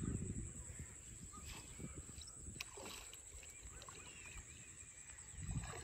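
Faint open-air ambience over flooded paddy water: a little water sloshing at the start as a fish trap is set in the shallow channel, over a low rumble, with faint bird chirps and a steady high insect whine.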